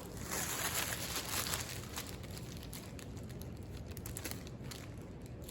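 Faint crinkling and rustling of packaging as a boxed AC adapter is unwrapped.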